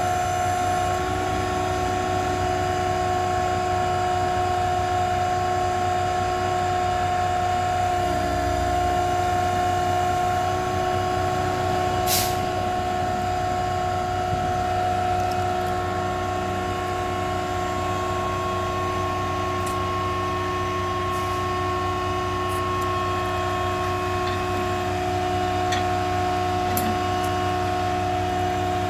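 Auto Crane service crane on a truck body running, a steady whine of several constant tones as its hoist lowers the hook. One sharp click about twelve seconds in.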